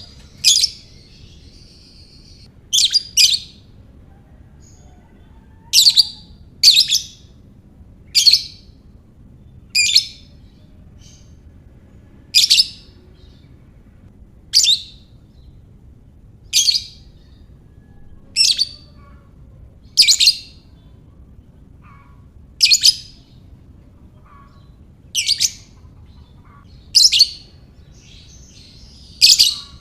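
Lovebird calling with loud, short, sharp chirps about every two seconds, now and then two in quick succession.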